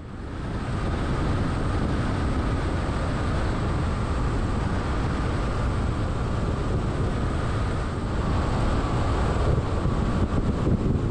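Steady road and wind noise from a vehicle driving at highway speed, with wind rumbling on the microphone. It comes up within the first second and then holds steady.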